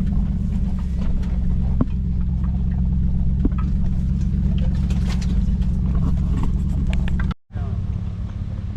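Lexus GX470's V8 engine running steadily at crawling speed on a rough trail, with scattered clicks and scrapes from rocks and branches against the vehicle. The sound breaks off briefly near the end and resumes a little quieter.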